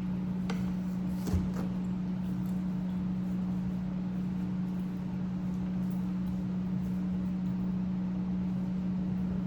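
A steady low hum that holds one pitch throughout, with two light clicks about half a second and just over a second in.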